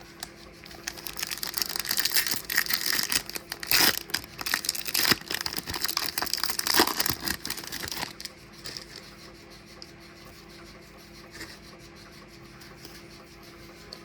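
Foil wrapper of a baseball card pack being torn open and crinkled for several seconds, then quieter.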